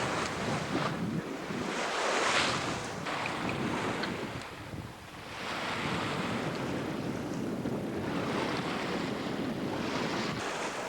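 Seawater rushing along the hull of a sailboat under way, surging louder and easing off every few seconds, with wind buffeting the microphone.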